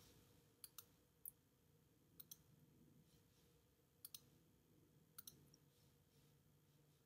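Faint clicks of a computer mouse, mostly in quick pairs, coming about five times at irregular intervals over a faint steady hum.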